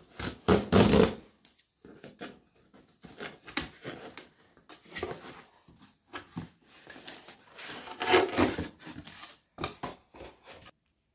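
Cardboard packaging being opened and handled by hand: irregular rustling and scraping of cardboard, loudest about a second in and again around eight seconds in, stopping abruptly near the end.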